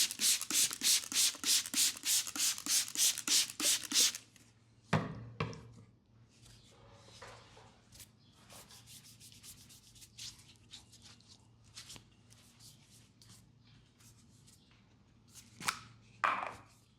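Hands rubbing fast and rhythmically over a leg in a massage, about four or five strokes a second, stopping about four seconds in. After that come softer scattered rubs and taps, with a thump about five seconds in and a couple more near the end.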